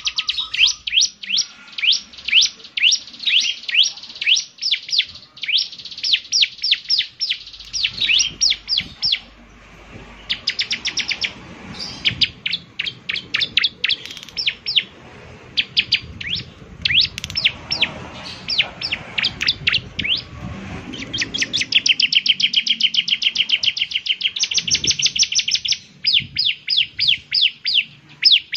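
Ciblek (bar-winged prinia) singing: long series of rapid, sharp, downward-sweeping high notes, quickening into a dense, buzzy trill about two-thirds of the way through.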